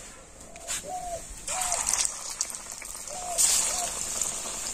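Cabbage-and-egg pakoras deep-frying in a kadai of hot oil, the sizzle jumping up twice as two pakoras go in. A few short bird calls sound over it.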